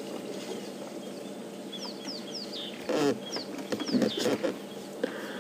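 A bird calling with a quick series of short chirps, each falling in pitch, repeated in little runs, with a couple of brief louder low sounds about three and four seconds in.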